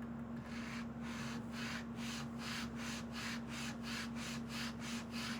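Wooden plane tote (rear handle) rubbed back and forth on sandpaper in quick, even strokes, about four a second, flattening its base so it sits flush without wobble. A faint steady hum runs underneath.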